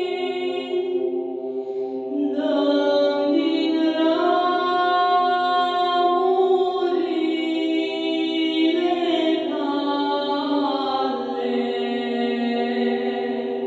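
A solo woman's voice singing unaccompanied into a microphone, in long held notes that move slowly in pitch.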